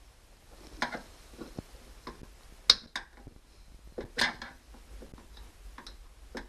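Screwdriver and small plastic parts clicking and tapping as they are worked into place, a scattering of sharp clicks with the loudest about two and a half seconds in and another cluster about four seconds in.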